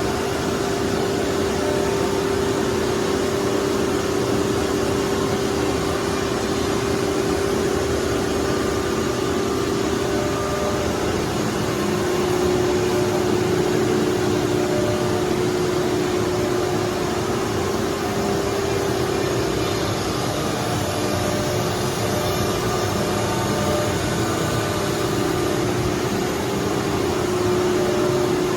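Single-spindle 1325 CNC router running: a steady high spindle whine over an even noise of cutting, its pitch stepping slightly lower about eleven seconds in and shifting a little a few times after.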